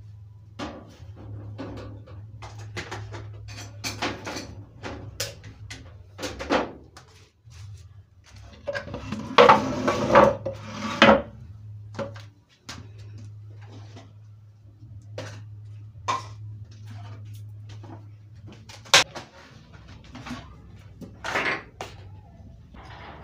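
Dishes and kitchen utensils clinking and knocking as they are handled and put away, with a louder run of clattering about ten seconds in, over a steady low hum.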